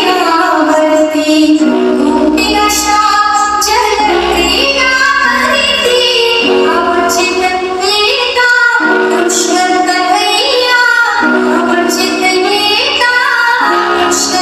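A song with a high, female-sounding vocal plays loud and continuously through a homemade mini DJ speaker system being sound-checked.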